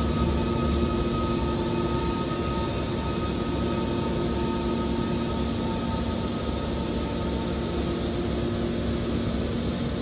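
Steady mechanical hum of industrial machinery running, with several held tones over an even noise and no knocks or changes.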